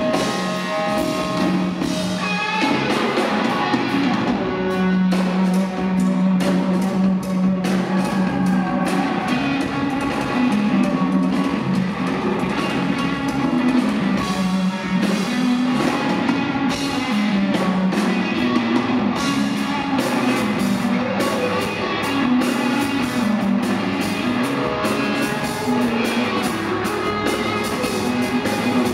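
A live rock band playing, an electric guitar over a drum kit, steady and loud throughout.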